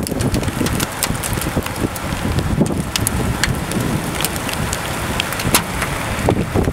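Storm wind gusting over the microphone with rain, steady rushing noise dotted with many sharp ticks of raindrops striking close by.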